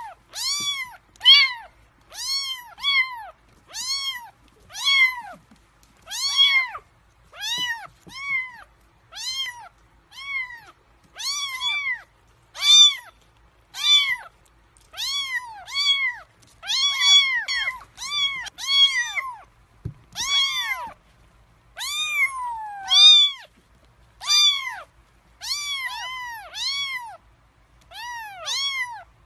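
Three-week-old kittens meowing with hunger before a feed. Their high, thin calls come a little over once a second, each one rising and falling in pitch, and several kittens cry over one another at times.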